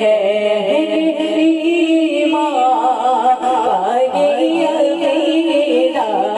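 Devotional singing: a naat or durood recited by voice, holding long wavering notes with little or no instrumental backing.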